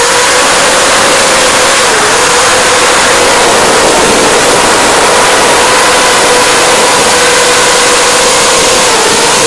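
Brushless motors and 5-inch triple-blade propellers of an FPV racing quadcopter (Racerstar 2403-2300KV motors) heard from its onboard camera: a loud, steady whine over heavy wind and propeller rush. The pitch dips briefly about two seconds in and again near the end.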